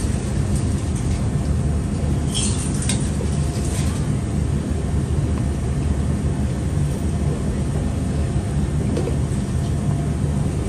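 Steady low rumble of a ramen stall's kitchen around a steaming noodle boiler, with a few light clinks of utensils about two to four seconds in.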